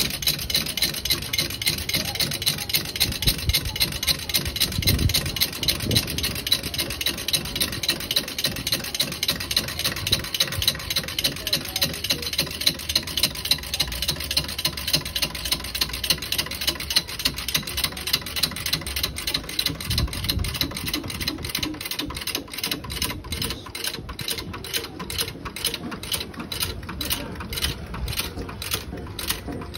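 Coconut milk press being worked, with a steady rhythmic mechanical clicking and grinding that becomes more distinct and spaced out in the last several seconds as the milk is squeezed out.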